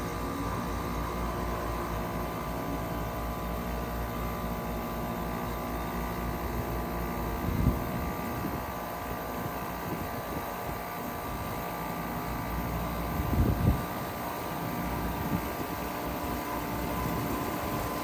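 Steady mechanical hum from a Payne PH13 heat pump's outdoor unit while its fan stands still. Two brief low thumps come about 7.5 and 13.5 seconds in.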